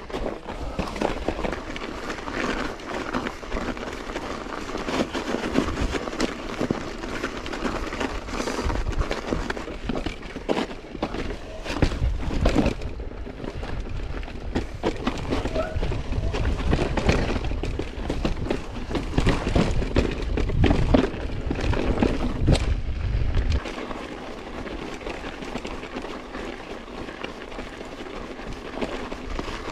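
Mountain bike riding noise on a camera mounted on the rider: wind buffeting the microphone while the tyres and bike clatter over rock, with many sharp knocks. A little over three-quarters of the way through, the low wind rumble drops away suddenly and the riding sound turns quieter and steadier on packed snow.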